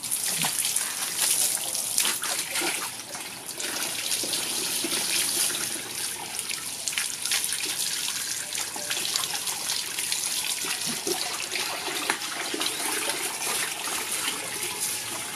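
Water running steadily and splashing in a plastic tub as a dog is rinsed of tick-and-flea shampoo by hand.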